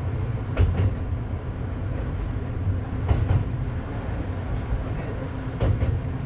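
Tsugaru 21 diesel railcar running along the line, its engine a steady low drone. Three evenly spaced clacks from wheels passing over rail joints come about two and a half seconds apart.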